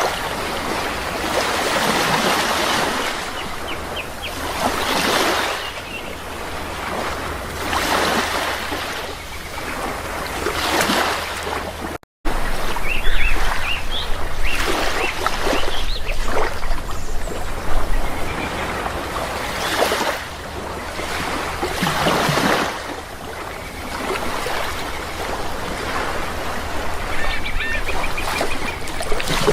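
Sea waves washing onto a shore in repeated swells every few seconds, with brief bird calls now and then. The sound cuts out for an instant about twelve seconds in.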